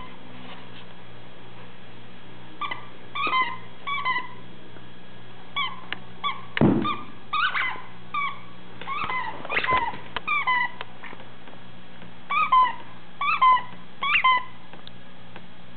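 Plush hedgehog squeaky toy squeaking again and again as an Airedale terrier bites and chews it: short squeaks, each dropping slightly in pitch, coming in clusters. A single thump about halfway through.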